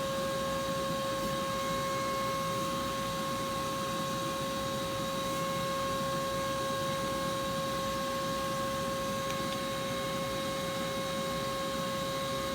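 Vacuum cleaner motor running steadily, a constant whine with a hum of airflow.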